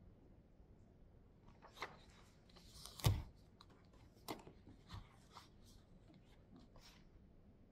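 Paperback book being handled: paper rustling and pages riffling, with a soft thump about three seconds in as the book is set down on the desk, then a few light ticks.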